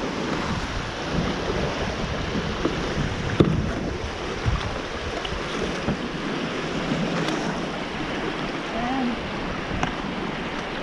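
River water rushing steadily over a shallow limestone rapid, with a few short, sharp knocks, the loudest about a third of the way in.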